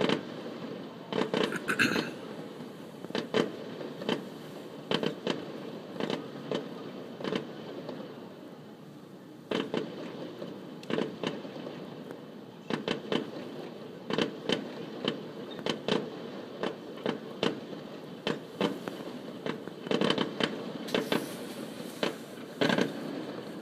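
Aerial fireworks going off: a long run of bursts, often several a second, with crackling near the start and again near the end.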